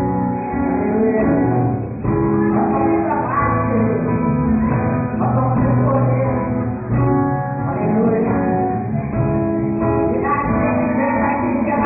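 Live band music: a voice singing over guitar and backing instruments, playing on steadily.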